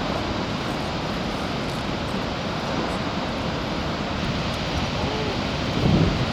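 Steady roar of Kaieteur Falls, a dense rushing noise of falling water, with a brief louder low rumble near the end.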